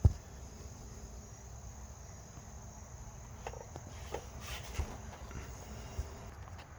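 Steady, faint, high insect chirring, with a sharp click at the very start and a few faint knocks and rustles of handling.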